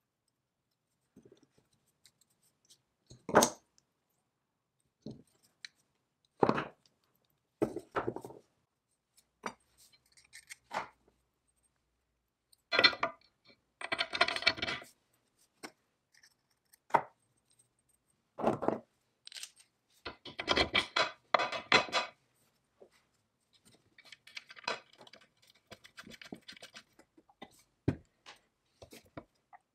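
Small steel parts of a Foley Automatic Filer Model 61 being handled and fitted together: a thumbscrew, springs and clamp arms clinking and knocking against each other and the cast-iron base. It comes as a string of separate clinks and knocks, with two longer rattling stretches in the middle and fainter scraping near the end.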